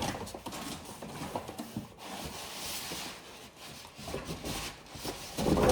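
Cardboard box and packaging being handled: rubbing and scraping with scattered light knocks and clicks.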